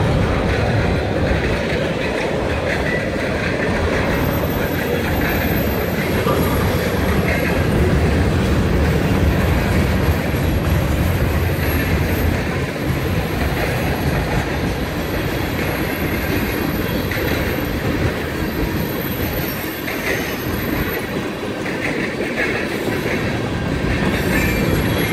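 Freight train of tank cars and covered hoppers rolling past at steady speed: a continuous rumble of steel wheels on rail. A thin, high-pitched wheel squeal comes and goes from a few seconds in.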